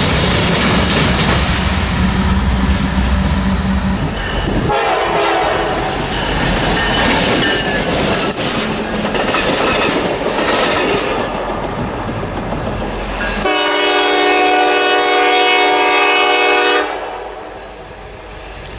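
Trains passing with a steady rumble and rolling noise. About three-quarters of the way through, a locomotive air horn sounds one long chord for about three seconds, after which the sound drops away.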